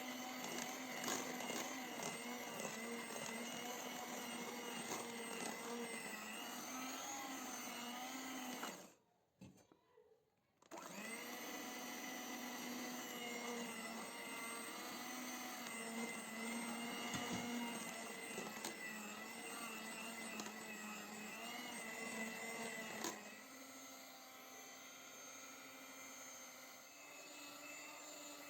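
Small electric appliance motor running with a steady hum. It cuts out about a third of the way in, starts again under two seconds later, and near the end settles to a quieter, slightly different pitch.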